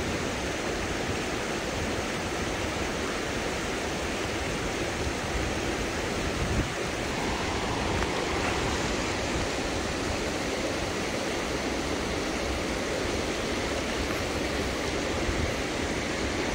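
Steady rushing of river current, with one brief knock about six and a half seconds in.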